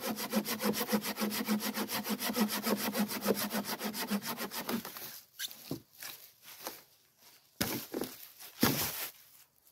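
Hand saw cutting through a dry fallen log in rapid, even strokes, stopping about five seconds in. After that, irregular crunching and rustling of footsteps in dry fallen leaves, with a couple of louder crunches near the end.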